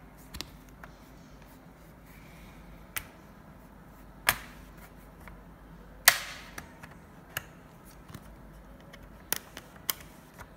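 Plastic clips of a laptop's bottom case snapping free one after another as a plastic pry card is worked along the seam. It makes a series of sharp clicks at uneven spacing, the loudest about six seconds in.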